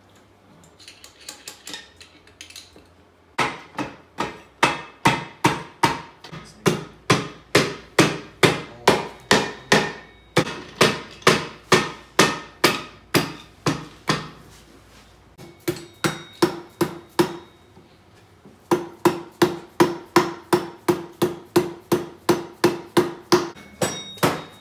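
Hammer pounding on a Peerless 2300 transaxle case to drive the two case halves together over their dowels until it seats. A few light taps, then long runs of heavy blows about three a second with two short pauses, the later blows ringing.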